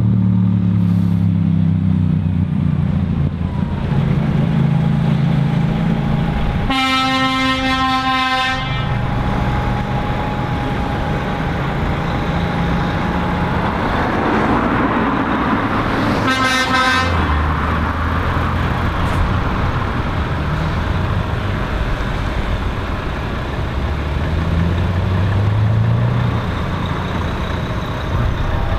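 Diesel engines of lorry tractor units pulling away and driving past, with the engine note rising once near the end. A lorry horn sounds twice: a long blast about seven seconds in and a shorter one about sixteen seconds in.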